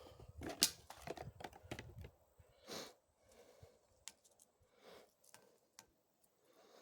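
Shotgun shells and their cardboard box being handled between shots: a few light clicks and short rustles, all faint.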